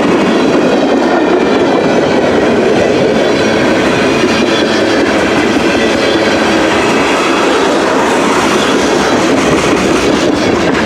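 CN M399 freight train's cars rolling past on the track: a loud, steady noise of steel wheels on rail that does not let up.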